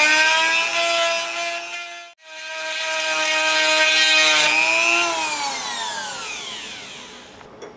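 Handheld rotary tool whining at high speed as it cuts a small sheet-metal tab held in a vise. The motor stops abruptly about two seconds in and starts again at once, then falls in pitch and fades as it is switched off and spins down.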